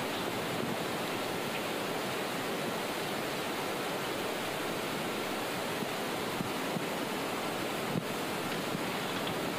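Steady rushing background noise, even and unbroken, with no speech.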